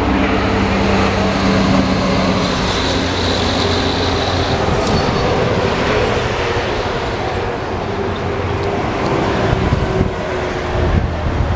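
Heavy truck driving past on the road, a steady engine and tyre noise.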